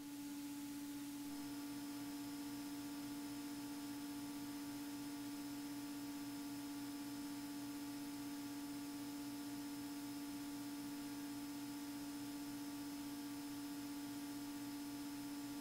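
Faint steady hum with an even hiss: the Beechcraft Bonanza A36's engine and propeller drone, heavily muted through the headset intercom recording.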